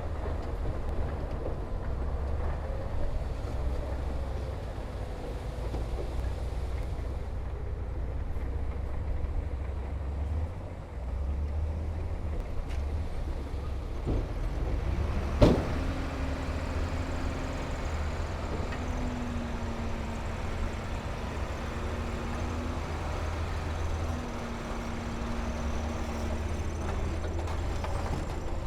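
Diesel engine of heavy earthmoving equipment running with a steady low rumble. A single sharp metallic clank about halfway through, then a steady higher hum that comes and goes three times.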